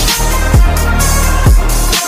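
Electronic dance music with a heavy beat and deep bass hits that drop in pitch.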